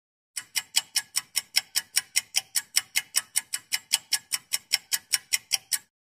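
Clock-ticking sound effect: a fast, even run of sharp ticks, about five a second, starting a moment in and stopping just before the end.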